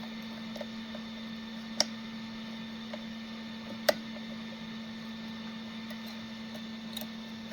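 A few sharp clicks, the loudest two about two and four seconds in, as a burnt 6-pin connector is worked loose from a desoldered circuit board. A steady low hum runs beneath them.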